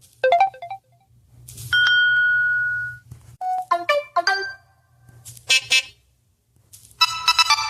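Samsung Galaxy S25 Ultra notification sounds played one after another: a short blip of quick notes, a single ding held for about a second and a half, a quick few-note jingle, a brief burst, then a fuller chime near the end.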